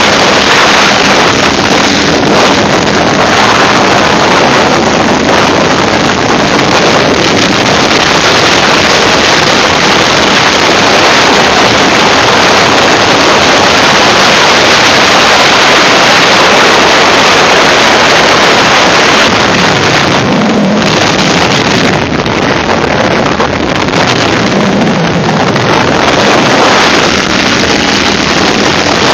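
Steady wind noise buffeting the microphone of a moving Ural motorcycle, with the bike's flat-twin engine running at road speed underneath.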